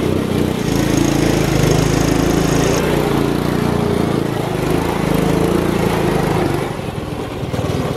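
Small gas go-kart engine swapped into a Power Wheels Mustang, running steadily under throttle as the car drives across grass. The engine note eases off near the end.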